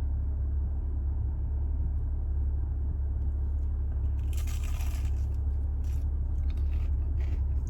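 Biting into a crunchy fried sweet potato: a loud crunch about four seconds in, then crunchy chewing. A steady low hum from the car runs underneath.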